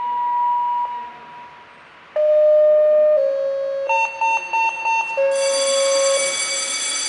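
Fire station call-out alarm: a steady electronic tone, a brief drop, then a sequence of pitched tones stepping from one pitch to another, a run of quick beeps about four seconds in, and a harsher buzzing tone from about five seconds on, signalling the company to turn out.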